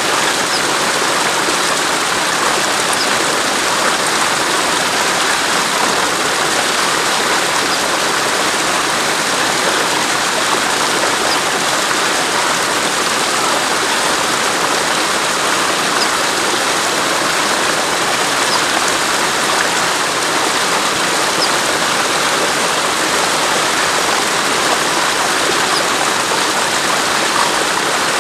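Steady, even rushing noise with no change in level and no clear coot calls.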